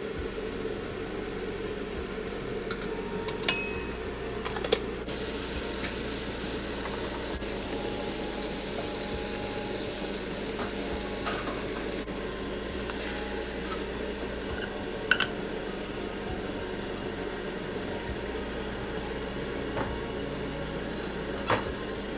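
Cooking in a kitchen: a few metal clinks as cooked rice is tipped from a steel colander into a saucepan, then diced chicken sizzling in a hot wok, with an occasional knock of a utensil, over a steady hum.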